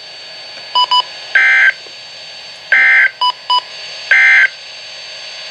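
NOAA Weather Radio end-of-message SAME data bursts: three short buzzy digital bursts about 1.4 seconds apart, marking the end of the warning broadcast. Two pairs of quick high beeps come between the bursts.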